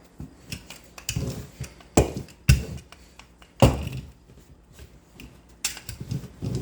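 Cookware being handled: about half a dozen knocks and clunks, the loudest about two seconds in, just after, and near four seconds in.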